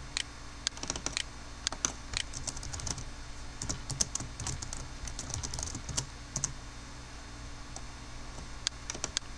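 Computer keyboard typing: irregular runs of keystrokes, which pause for about two seconds near the end before a few more keys. A low steady hum runs under it.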